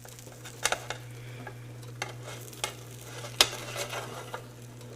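A spatula clicking and scraping against the plates of a hot sandwich maker as a grilled cheese sandwich is flipped and lifted out, with a light sizzle and a steady low hum underneath. There are about five sharp clicks, and the loudest comes about three and a half seconds in.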